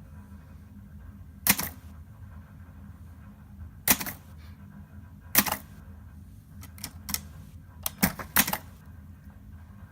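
Hermes Baby portable manual typewriter being typed on slowly: single sharp key clacks a second or two apart, then several closer together in the second half, in an irregular rhythm.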